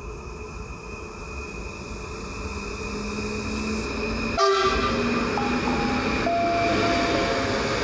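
PKP Intercity Stadler FLIRT electric multiple unit approaching and running past, its rail noise building steadily. A short horn blast comes about four and a half seconds in, followed by a steady whine as the cars go by.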